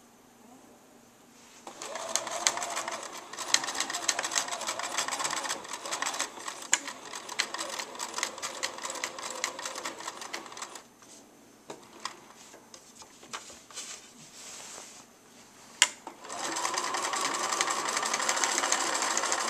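Electric sewing machine stitching in runs, its needle mechanism clicking rapidly. It starts about two seconds in, runs for about nine seconds, stops for several seconds with a few separate clicks and one sharp click, then starts again near the end.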